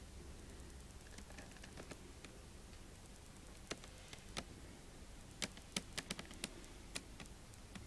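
Scattered light clicks and taps of a collectible figure's box being handled, sparse at first and coming more often in the second half.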